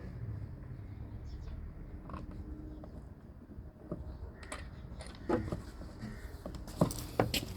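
Low steady rumble in the background, with a few sharp clicks and knocks of metal and plastic parts being handled inside a car door during work on the door lock mechanism; the knocks come more often near the end.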